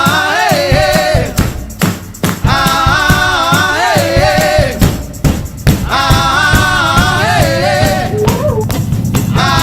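Music: an upbeat song with singing voices over a steady rhythm section with shaker or tambourine.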